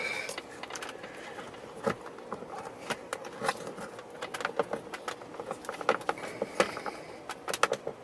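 Irregular sharp plastic clicks and creaks as a plastic trim pry tool and fingers work a dashboard trim panel's clips loose.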